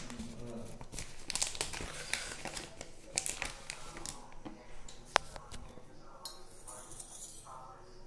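Clear plastic bag crinkling and rustling as it is handled, with one sharp click about five seconds in.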